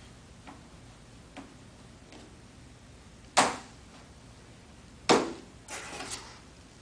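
Plastic pleat spacer being snapped onto a pleated furnace air-cleaner filter: a few faint clicks, then two sharp snaps about a second and a half apart, followed by a short run of softer clicks.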